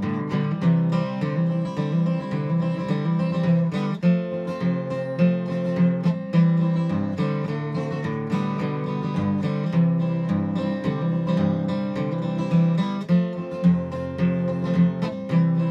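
Acoustic guitar played solo as an instrumental break in a country song: a steady rhythm of strummed chords over moving bass notes.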